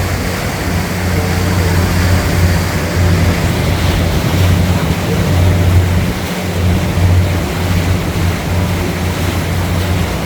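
Fishing boat's engine running with a steady low drone, over the rush of wind and sea water.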